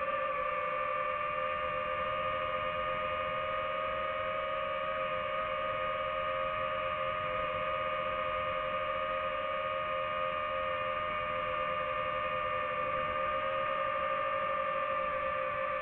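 Steady high whine of a DJI FPV drone's motors and propellers at an even throttle, holding nearly one pitch with only slight wavering.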